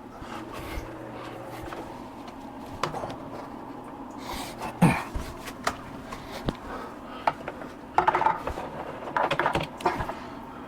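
Scattered light clicks and knocks of hands handling plastic 3D-printer parts and cables while a hub is being reconnected, sparse at first and coming in a quick cluster about eight seconds in.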